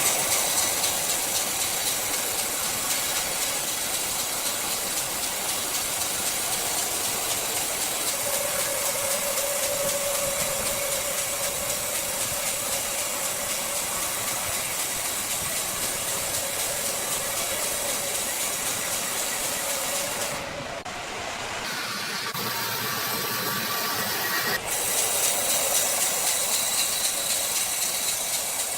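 Sawmill machinery running and cutting wood, a loud steady hiss-like noise with a humming tone through the middle stretch; the sound changes abruptly twice in the second half.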